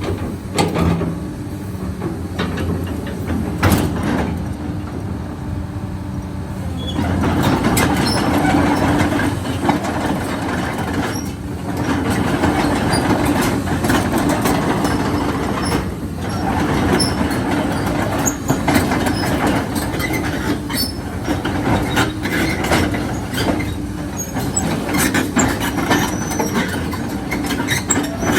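Komatsu PC220-7 hydraulic excavator running, its diesel engine a steady hum with frequent sharp clanks from the machine. It gets louder about seven seconds in, with brief dips a few times after.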